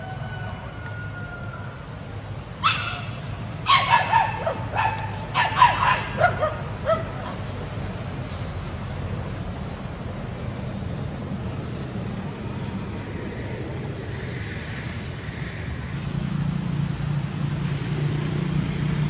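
Dogs barking, a quick run of sharp barks and yips from about three to seven seconds in, over a steady low engine hum that grows louder near the end.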